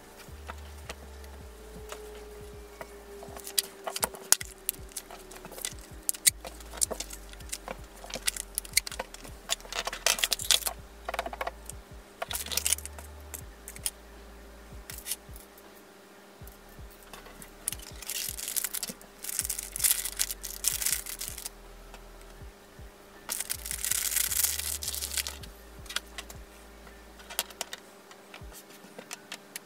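Hands handling fabric scrunchie pieces and small items on a cutting mat: scattered light taps and clicks with bursts of rustling, the longest and loudest rustling coming about two-thirds of the way through.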